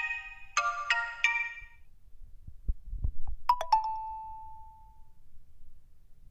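Xiaomi MIUI 12 phone ringtones playing in turn: a repeating mallet-chime melody that stops about two seconds in, then a few low thumps, then a short single chime whose tone rings out for about a second and a half.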